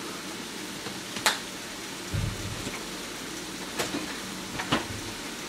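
Watery sweet and sour sauce simmering in a nonstick pan: a steady hiss broken by a few sharp little ticks.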